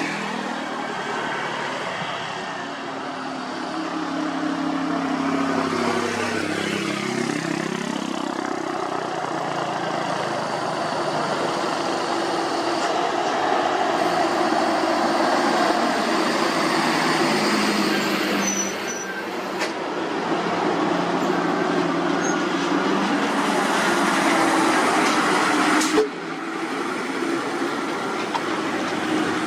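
Heavy diesel road-paving machinery running: the engines of an asphalt paver, dump trucks and roller, with one engine's pitch dipping and rising about seven seconds in. A single sharp knock sounds near the end.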